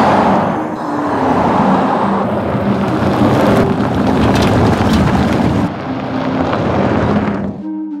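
Skoda Enyaq RS iV electric SUV driving, a loud, even rush of tyre and road noise with a few low steady tones underneath. It cuts off suddenly near the end and gives way to music.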